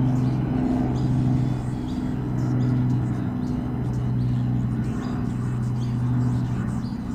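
A steady low mechanical hum, like an engine running, swelling and easing a little in level, over a faint background haze.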